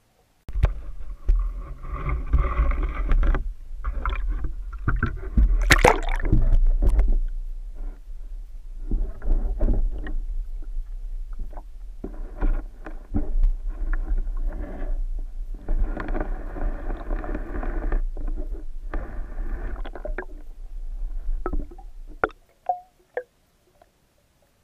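Water sloshing and rumbling against a submerged camera housing as the camera is moved about under water. A steady low rumble carries repeated swishing surges of a second or two each. It cuts off abruptly near the end, leaving a few sharp clicks.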